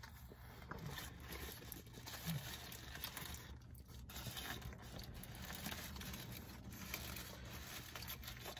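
Faint crinkling of a paper burger wrapper in the hands and chewing, in small irregular rustles over a low, steady hum.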